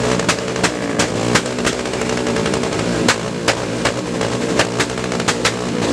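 Royal Enfield Himalayan's 411 cc single-cylinder engine running loud through an aftermarket exhaust and being revved up and down, with sharp cracks coming about three times a second.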